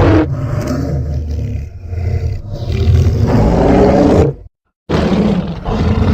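Designed monster roar sound effect for a giant dinosaur-like creature: a loud, deep, layered roar that cuts off abruptly about four and a half seconds in. After a half-second gap, a second, shorter roar starts and also stops dead.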